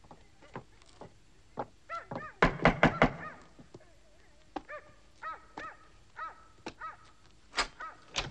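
A dog barking repeatedly in short barks, with four heavy knocks in quick succession about two and a half seconds in and single sharp knocks near the end.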